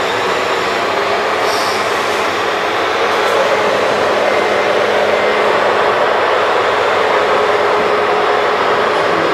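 Radio-controlled model dump trucks driving, a steady mechanical whirring and rumbling from their motors and drive gear.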